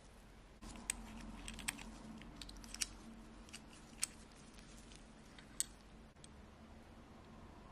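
Nitrile-gloved fingers gripping the steel case of a 1940s Rolex Air-King 4499 and unscrewing its caseback: a close rustle of glove on metal, with five or so sharp clicks. It starts about half a second in and dies away near the end.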